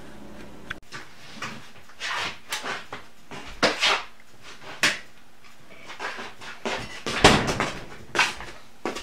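Lidded stainless steel roasting pot being handled: a run of irregular metal clunks and knocks, the loudest about seven seconds in.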